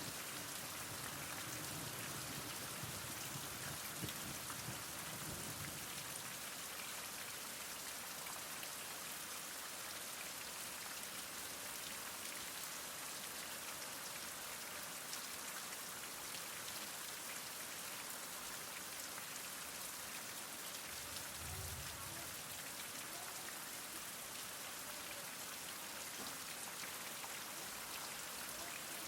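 Heavy rain falling steadily, a dense even hiss of many drops. A low rumble sits under it in the first few seconds and again briefly about 21 seconds in.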